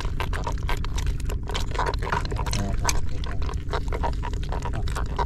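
Water splashing and sloshing in many short splashes as catch is handled in buckets aboard a fishing boat, over a steady low drone.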